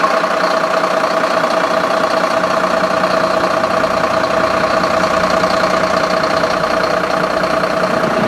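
Mercedes-Benz fire engine's diesel engine idling steadily, with a constant whine over the running.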